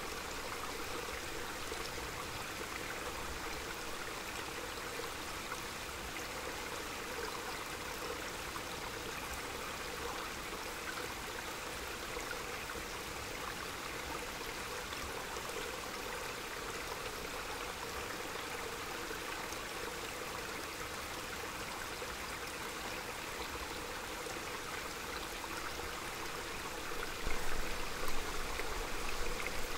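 Small mountain stream running steadily, an even rush of water. Near the end, gusts of low rumble come in, louder than the water.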